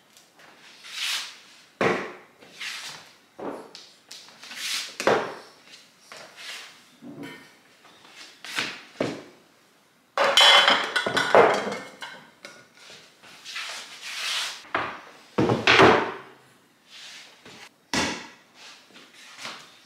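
Kitchen items being handled and set down on a countertop: a string of irregular knocks, clatters and scrapes, busiest and loudest about ten seconds in, with a heavy knock near the end.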